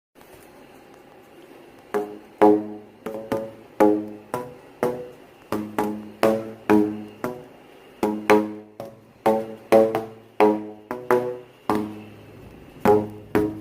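Percussion music: a rhythmic run of short, pitched, quickly decaying strikes, about two a second, starting about two seconds in.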